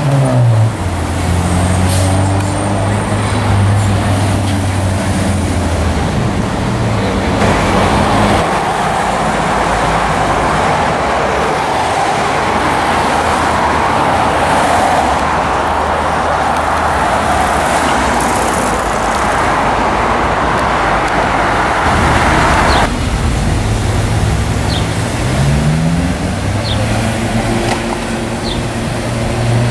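Cars driving slowly past on a street with their engines running. A long stretch of loud rushing noise fills the middle, and an engine's pitch climbs near the end.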